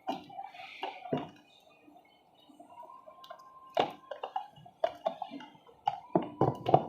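Scattered clicks and knocks of hands handling a laptop and its charger, with a quick cluster of clicks near the end.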